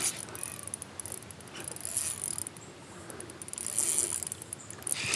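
Fishing reel clicking rapidly in short runs while a hooked smallmouth bass is being fought on the line.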